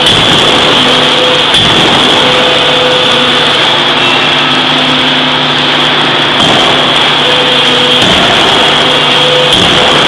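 Heavy forging machinery running loudly with a steady mechanical hum and whine, broken by a few faint knocks.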